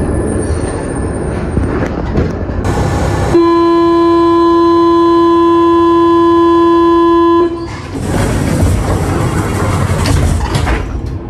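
Paris Métro MF 88 train noise with a loud, steady warning tone that sounds for about four seconds in the middle and cuts off sharply. The train's rumble is heard before and after the tone.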